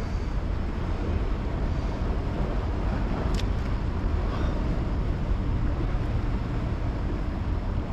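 Steady low rumble of wind buffeting the microphone, with one faint click about three and a half seconds in.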